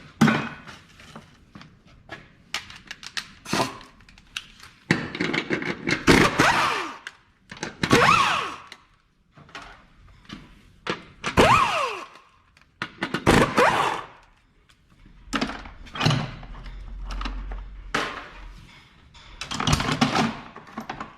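Hand tools and metal parts clanking, knocking and scraping in irregular bursts over several seconds, a few of them with short falling squeaks, as 14mm bolts are worked on under the car.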